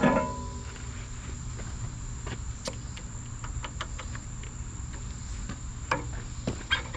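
A metal clank with a short ring, then scattered light clicks and knocks: hydraulic hoses and quick-connect couplers being handled while they are hooked up.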